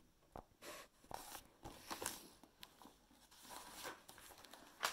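Faint rustling and light clicks of a paperback book's pages being handled and turned, with a sharper click at the end.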